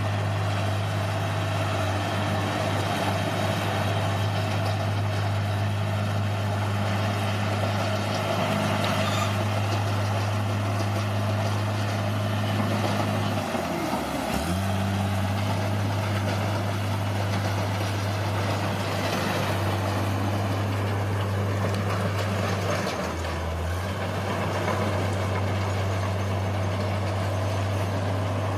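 Bulldozer's diesel engine running steadily, its pitch dipping briefly twice, once about halfway through and once near the end.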